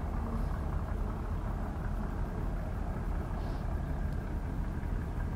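Steady low outdoor rumble, even and unbroken, with no distinct events.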